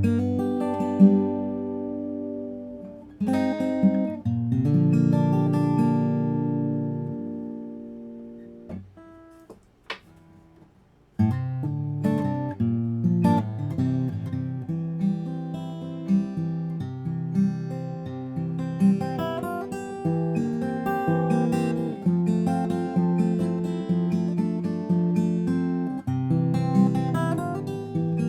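Guild JF-30 jumbo steel-string acoustic guitar being played: a few chords, one left ringing until it fades almost to nothing, a soft click, then steady picked notes and chords start again about eleven seconds in.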